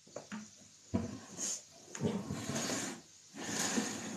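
Plastic shop vac body being handled and slid about on a wooden tabletop: a series of short scrapes and knocks, some sharp-edged and some drawn out over most of a second.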